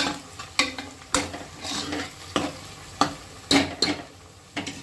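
Spoon stirring sliced onions and green chillies frying in oil in a pressure cooker, scraping against the pot about every half second over a steady sizzle.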